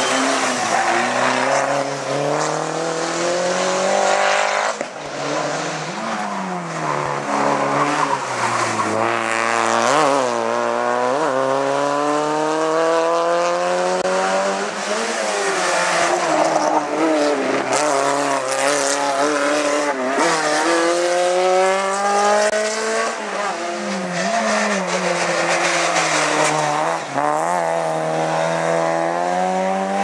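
Hillclimb race cars driven hard through a bend one after another, engines revving with the pitch climbing through each gear and dropping sharply at every shift, with some tyre squeal.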